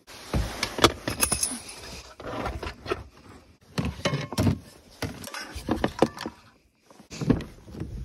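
Rummaging through a plastic storage tote full of gear: a frying pan, cables and other loose items clattering, knocking and jangling against each other and the tub.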